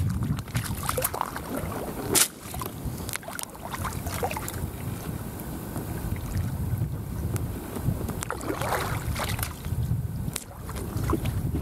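Wind buffeting the microphone, over light splashing of feet wading in shallow water and scattered clicks and knocks as a Gumotex Twist inflatable kayak is set on the water. A sharp knock about two seconds in is the loudest sound.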